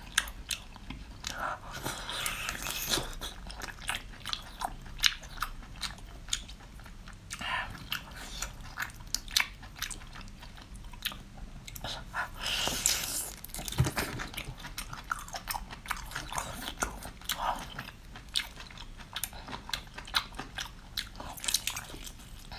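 Close-up chewing and biting of crunchy food, with many irregular sharp crunches.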